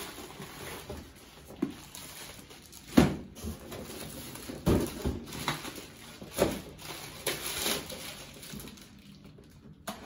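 Cardboard boxes being unpacked by hand: plastic packaging crinkling and rustling, with scattered knocks of cardboard and contents. The loudest knock comes about three seconds in and another near five seconds.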